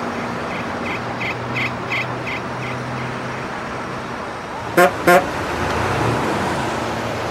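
A vehicle horn gives two short toots in quick succession over a steady engine rumble. Before that comes a run of about seven short, high chirps, about three a second.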